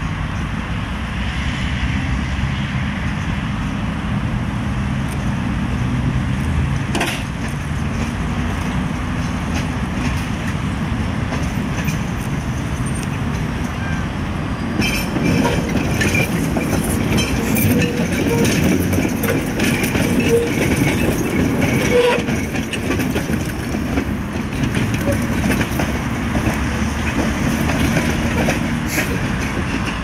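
Tram running along the tracks, at first a steady low hum, then from about halfway a close pass with its wheels clattering and clicking over the rails.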